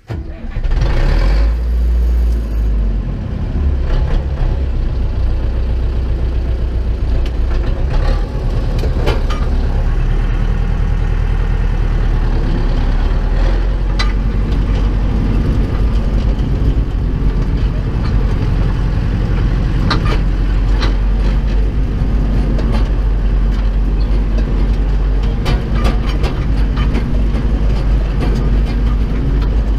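Zetor 7745 tractor's four-cylinder diesel engine starting up with a sudden burst of noise, then running steadily and loudly, heard from inside the cab as the tractor drives off, with occasional sharp rattles.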